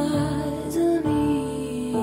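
Soft, slow background music with sustained notes that change about once a second.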